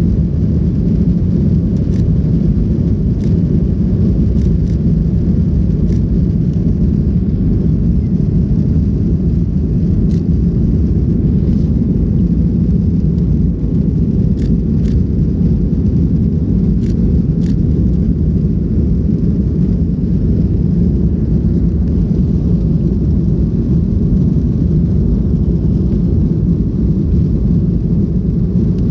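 Cabin noise of a Boeing 737 taxiing: a steady, even low rumble from the engines at taxi power and the wheels rolling on the taxiway, with a few faint light ticks.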